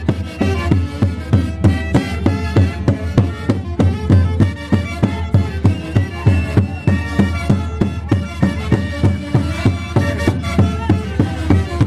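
Huancayo orquesta típica playing a Santiago tune, a melody over a steady, evenly pulsing beat with a strong bass.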